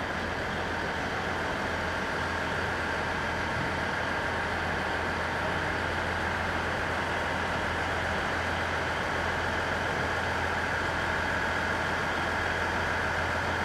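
Steady hum of stopped JR East electric trains (701 series and E3 series) idling at the platform with their onboard equipment running: a low drone and a higher whine, both holding level.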